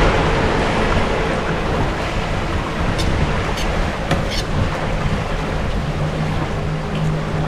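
Steady outdoor wind-and-water hiss with the low, even drone of a motorboat engine, stronger near the end, and a few light clicks about three to four and a half seconds in.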